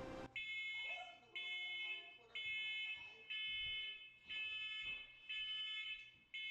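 Fire alarm going off: a high electronic beep repeating steadily about once a second, each beep lasting just over half a second.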